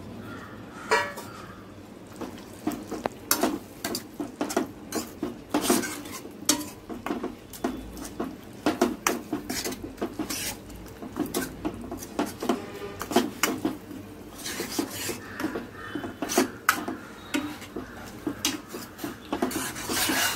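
Stainless steel ladle stirring thick vegetable kurma in a kadai, scraping through the curry with many irregular clinks and knocks against the pan.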